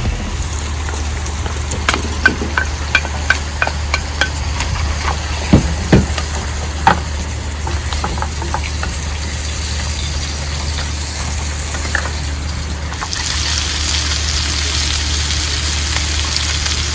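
Food frying and sizzling in a pan, with a run of sharp clicks and knocks of a utensil against the pan in the first seven seconds. About thirteen seconds in the sizzle turns louder and hissier, over a steady low hum.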